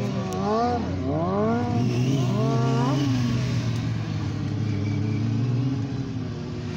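Motorcycle engine revving up and down several times, then held at a steady pitch for a few seconds before easing off near the end.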